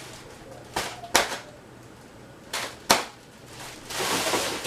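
Sharp snaps and cracks from a cardboard shipping box being handled and opened, four in all, in two pairs, the last the loudest, followed by a rustling near the end.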